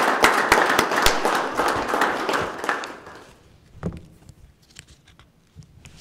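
People applauding, with the clapping dying away about three seconds in, followed by a single soft thump.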